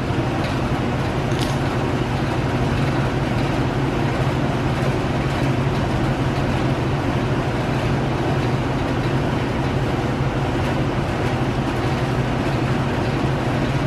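Steady low mechanical drone that holds at an even level without change.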